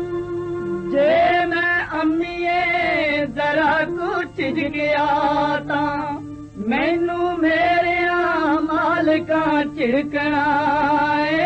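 A woman singing a Punjabi folk song in long, wavering held notes over a steady instrumental drone. The voice comes in about a second in, pauses briefly near the middle, then carries on.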